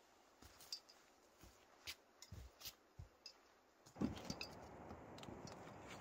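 Faint, scattered crackles and ticks of footsteps through forest undergrowth. About four seconds in comes a sharp thump, and a louder steady rushing noise sets in.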